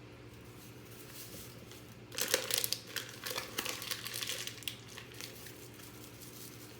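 Plastic pouch of Jell-O instant pudding mix crinkling and rustling. It starts about two seconds in and runs for about three seconds, as the last of the powder is shaken out into the bowl.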